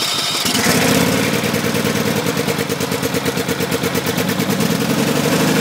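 Engine on a wildland fire truck running, its exhaust pushing open the rain cap on a heat-wrapped exhaust pipe. It is loud and steady with a rapid, even throb.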